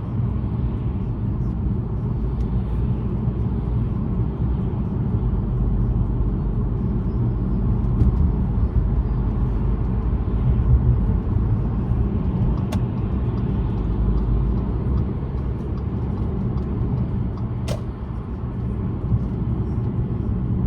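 Steady low rumble of a car's engine and tyres on a wet road, heard from inside the moving car, with two brief sharp clicks about two-thirds of the way through and near the end.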